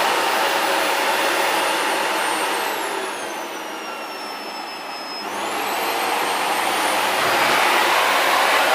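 Panasonic MC-PB5F-KK paper-bag vacuum cleaner running with a steady rush of air and a high motor whine. Partway through, the whine slides down in pitch and the sound drops as the motor slows, then about five seconds in it climbs quickly back up to full speed.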